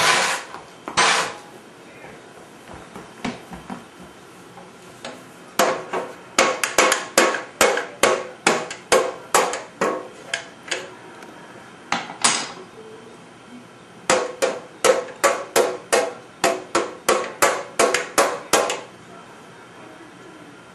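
Metal stock pot struck from inside by a toddler's utensil: ringing metallic clanks. Two loud clanks at the start, then two long runs of about three strikes a second with a short pause between them.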